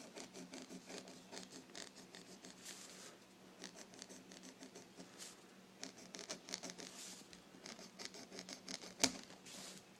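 Mechanical pencil scratching on paper, pressed down hard while drawing, in faint, quick, irregular strokes, with one sharper click about nine seconds in.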